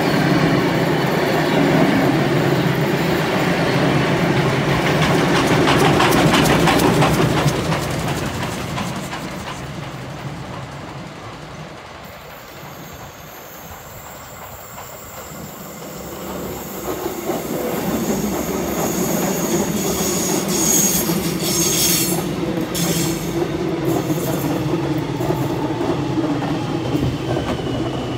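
The last heritage passenger carriages of a steam-hauled train roll past with a clickety-clack of wheels over the rail joints, fading away. Then a Metro X'Trapolis 100 electric suburban train approaches and runs close past, wheels clattering, with brief high wheel squeals and a whine that falls in pitch near the end.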